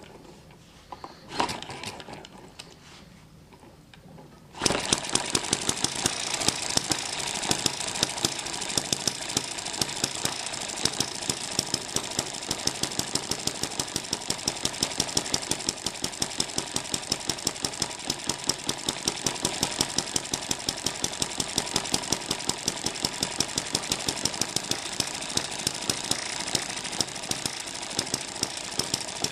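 Eachine ET7 model hit-and-miss gas engine catching about four and a half seconds in, after a couple of handling clicks, then running steadily with a fast mechanical clatter and a sharp louder beat every few strokes.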